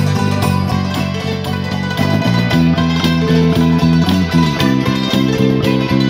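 Thai khim hammered dulcimers struck with bamboo beaters, playing a quick, even run of ringing notes together over an electric bass guitar line.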